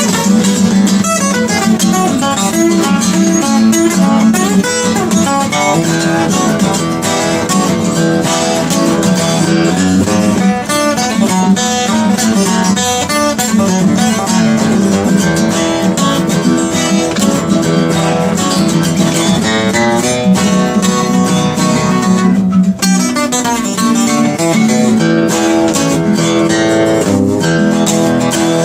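Acoustic guitar playing an instrumental blues passage, picked and strummed.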